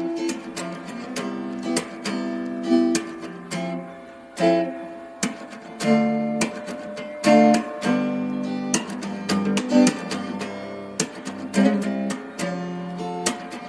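Acoustic guitar music: chords strummed with sharp attacks, changing every second or so.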